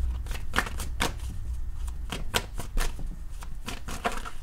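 A tarot deck being shuffled by hand: a run of quick, irregular crisp card flicks and clicks.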